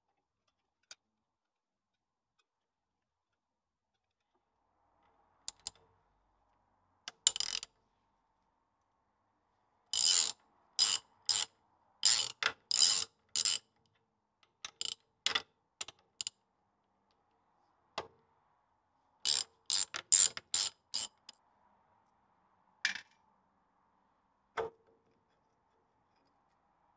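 Socket ratchet clicking in short quick runs as the nuts on the swivel housing's top swivel pin are undone, in two busy clusters with a few single sharp clicks and knocks before and after.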